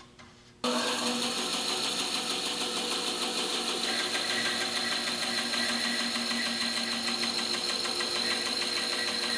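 Band saw running with a 3/4-inch, 14-teeth-per-inch blade, a steady machine sound with a steady hum that comes in suddenly about half a second in. The blade cuts slowly across the grain of a clamped hardwood board at an angle.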